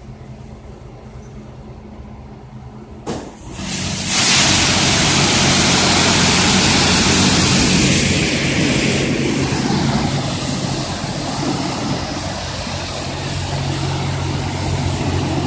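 Touchless car wash machinery with its motor humming steadily; about three seconds in, a sharp pop, then the high-pressure water spray comes on with a loud hiss that eases a little after a few seconds while the hum carries on underneath.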